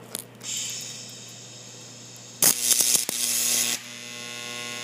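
TIG welding arc on a Miller TIG welder: a steady hiss, then about two and a half seconds in the arc strikes with a loud crackling burst lasting about a second, and it settles into a steady electric buzzing hum as the arc holds.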